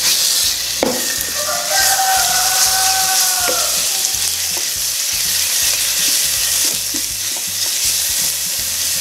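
Chopped onion, garlic and cumin sizzling in hot oil in a steel pot, stirred with a wooden spoon. A rooster crows once, starting about a second and a half in and lasting about two seconds.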